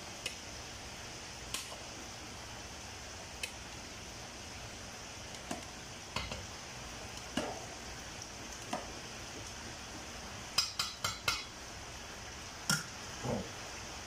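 Kitchen clatter of cookware and utensils: scattered clinks and knocks, with a quick run of four clinks about ten and a half seconds in, over a steady background hiss.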